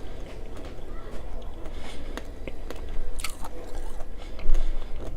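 Close-miked biting and chewing of Nerds Rope candy, the small hard Nerds on the gummy rope crunching and crackling between the teeth, with a sharper crunch a little past halfway.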